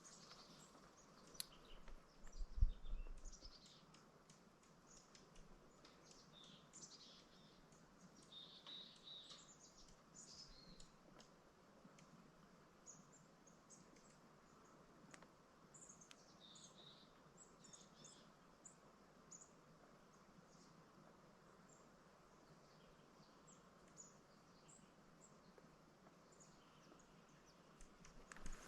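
Faint, scattered high chirps of small birds calling over near-silent mountain quiet, with one soft low thump about two and a half seconds in.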